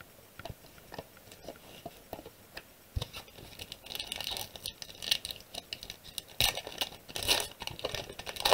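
A few faint taps, then from about three seconds in the crinkling and tearing of a foil Pokémon booster-pack wrapper being opened, in irregular bursts that are loudest past the middle.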